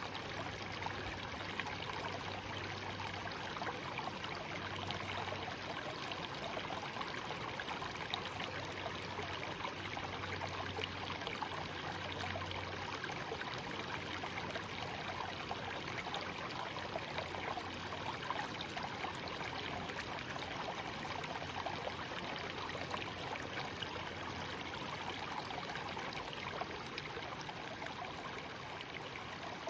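Small shallow stream babbling steadily, with constant trickling and little splashes of running water.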